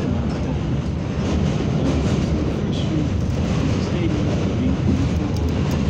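R68 subway car running along the track, heard from inside the car: a steady, loud rumble with faint voices beneath it.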